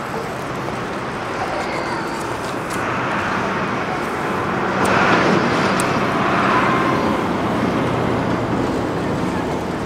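Steady road traffic noise, swelling louder about five seconds in.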